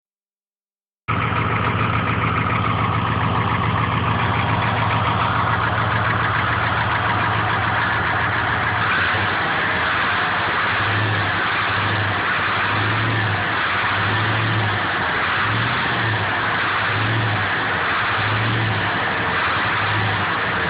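Car engine idling, with a noise the owner suspects may be piston slap. The sound starts about a second in, and from about halfway a low hum swells and fades roughly once a second.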